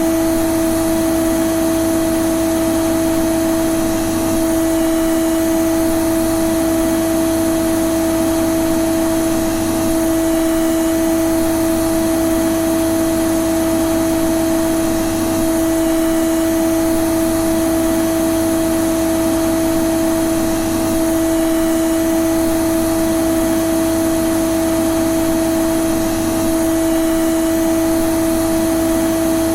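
Vacuum cleaner (hoover) running continuously, a steady motor hum with a strong single pitch over the rush of air.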